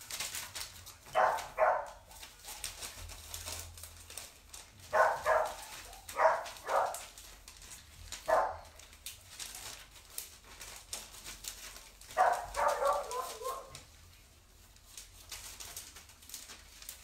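Dog barking in short clusters of two or three barks, with pauses of a few seconds between. A longer run of quick barks comes about three quarters of the way through.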